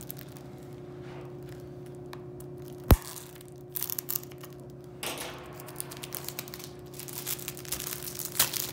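Plastic shrink wrap being torn and peeled off a Blu-ray case, crinkling in rapid crackles through the second half. One sharp click about three seconds in is the loudest sound.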